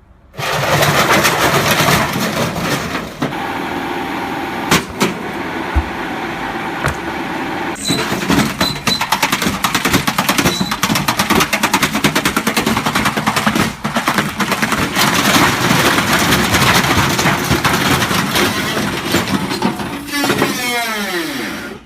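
Washing machine running out of control on a spin, a loud, continuous clattering and banging that starts abruptly. Near the end it winds down with a falling whine.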